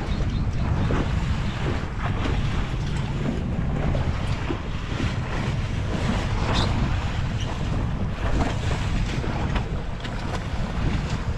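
Wind buffeting the microphone on a small fishing boat at sea, with waves sloshing against the hull; a gusty rush strongest in the low end, with a few faint knocks.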